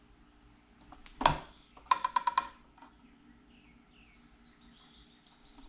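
Wire strippers working on the cut ends of house wiring: one sharp snap a little over a second in, then a quick run of metallic clicks. Faint short high chirps sound now and then behind it.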